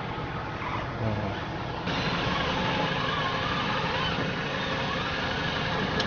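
2016 Ford Kuga 2.5-litre engine running steadily. The noise steps up about two seconds in, and there is a single light click near the end.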